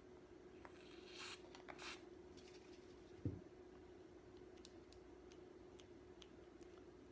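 Faint: two brief hisses of aerosol lubricant sprayed into a Remington Mohawk 48 shotgun's trigger housing, then a single soft knock and scattered small metallic clicks as the trigger group is handled, over a faint steady hum.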